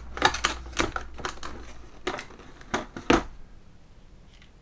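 Plastic model-kit parts and vinyl tyres being handled in a parts tray: a quick series of sharp clicks and knocks that die away about three and a half seconds in.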